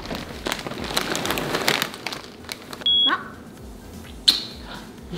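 A single short, high electronic beep about three seconds in, among scattered clatter and rustling, with a sharp click near the end.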